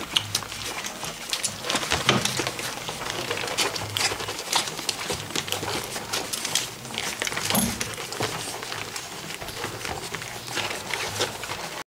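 Golden retriever puppies about four weeks old suckling at their mother, a dense run of irregular wet sucking and smacking clicks.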